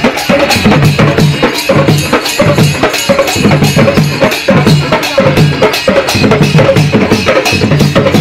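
Live Sambalpuri folk band music: hand-beaten drums in a fast, driving rhythm with a pitched melody over them.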